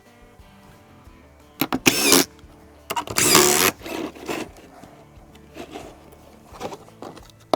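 Screw gun driving screws into wooden battens in two short runs, about two and three seconds in, the second a little under a second long. Background music plays underneath.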